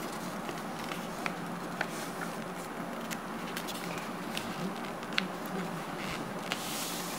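Sheet of A4 paper being folded and creased by hand: a few faint crinkling ticks and soft rustles, with a longer rustle near the end, over a steady background hiss.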